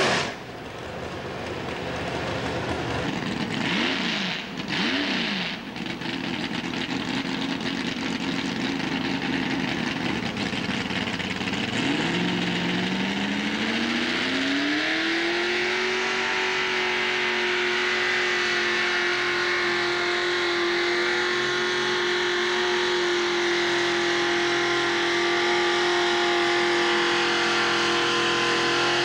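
Mini pulling tractor's engine idling with two quick blips of the throttle, then, about twelve seconds in, revving up smoothly over a few seconds and holding at high revs as the tractor pulls the sled.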